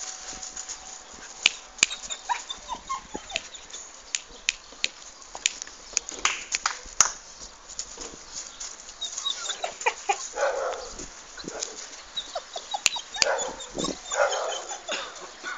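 Neapolitan mastiff puppy yelping in short bursts, bunched about ten seconds in and again near the end, over many sharp clicks and knocks.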